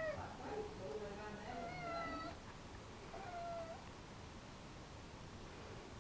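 Ragdoll cat meowing, about four drawn-out, falling meows in the first four seconds, the longest around two seconds in; the uploader takes it for a jealous cat wanting attention.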